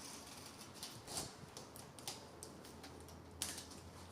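Faint, scattered light clicks and taps from handling the window screen frame and mesh, with one sharper click near the end.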